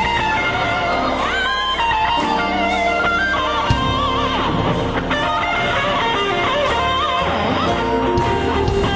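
Gospel song music with a guitar prominent, its lead line bending in pitch over a full band.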